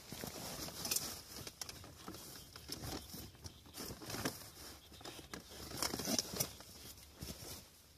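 Irregular rustling and crinkling of camping gear and a soft bag being handled, with scattered light clicks and knocks.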